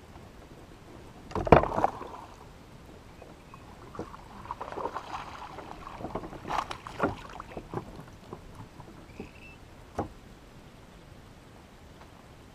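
A small bass is landed into a plastic fishing kayak. About a second and a half in there is a loud splash and thump as it is brought to the boat. Knocks and rattles follow for a few seconds as it is handled aboard, and a single sharp click comes near the end.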